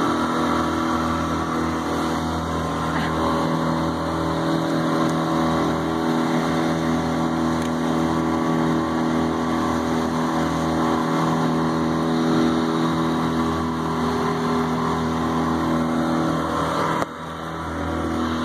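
Outboard motor running steadily under way, with water and wind rushing past the small open boat. The sound drops suddenly near the end.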